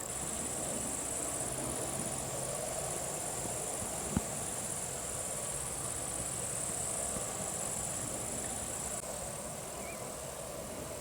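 A chorus of crickets chirring: a steady, high-pitched trill without pause. One short click about four seconds in.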